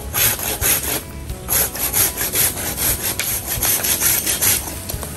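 Hand saw cutting through a tầm vông bamboo cane in quick back-and-forth rasping strokes, with a short pause about a second in.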